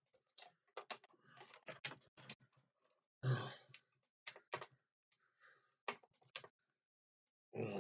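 Scattered small clicks and rustles of nail clippers and plastic packaging being worked at a zip tie, with a short sigh about three seconds in.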